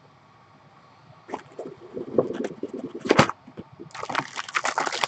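Plastic packaging being handled: irregular rustling and crinkling that starts about a second and a half in and grows denser near the end, with a sharp click about three seconds in.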